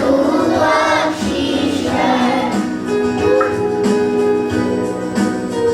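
Children's chorus singing a Hindi prayer song over instrumental backing. The sung line ends about two seconds in, and the accompaniment carries on alone with held notes and a steady beat.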